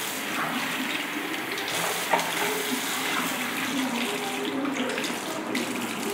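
Bathroom tap running into a washbasin as a plastic water bottle is rinsed under the stream, the water splashing steadily. The flow cuts off at the very end as the tap is shut.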